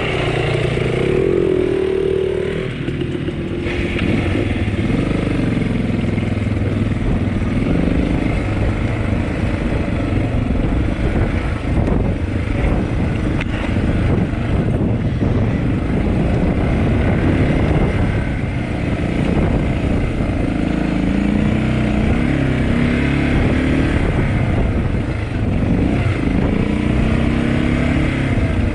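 Dirt bike engine running as the bike is ridden along a trail, revs rising and falling with the throttle.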